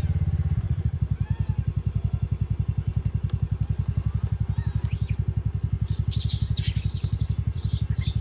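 TVS Ntorq scooter's single-cylinder four-stroke engine idling with the scooter stopped, a steady quick low thudding pulse. Short scratchy high-pitched sounds come and go in the second half.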